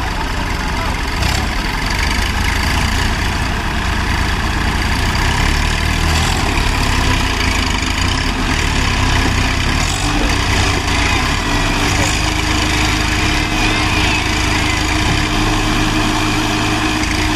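Tractor diesel engines running with a steady low rumble, a hum in the engine sound stepping up in pitch about ten seconds in. Men's voices are heard faintly.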